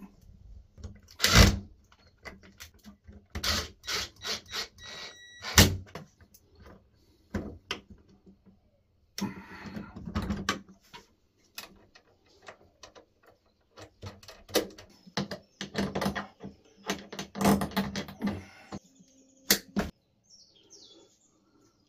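Intermittent clicks, knocks and rattles of a steel hex key and hands working the terminal screws of a plastic DC breaker enclosure, with cable handling. The loudest are two sharp knocks, about one and a half and five and a half seconds in.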